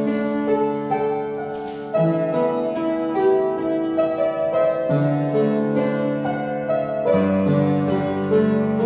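Upright piano playing a slow praise song on its own, sustained chords with a melody over them, the harmony changing every second or two.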